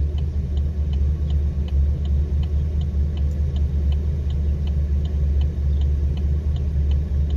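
Camaro SS V8 with aftermarket headers idling with a steady low rumble. A faint light tick repeats about three times a second.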